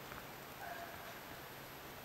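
Quiet steady hiss of room tone, with a faint brief high tone about half a second in.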